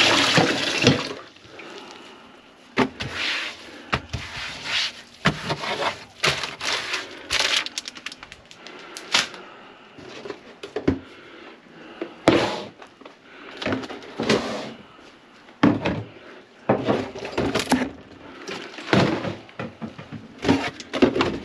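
Running tap water cuts off about a second in, followed by irregular knocks, clacks and rattles of hard objects being handled and set down.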